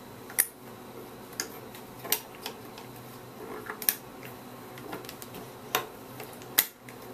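Scattered light clicks and taps, about six at irregular intervals, as a wire tool and fingers work a small rubber drive belt onto a pulley in a Super 8 movie projector's plastic mechanism.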